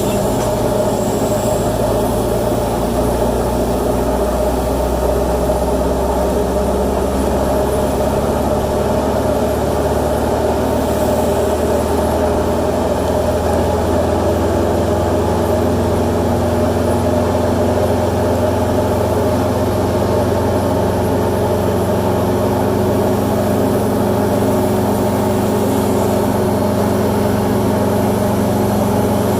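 Aircraft tow tug's heavy engine running steadily while towing a Boeing 777, its note shifting slightly about halfway through.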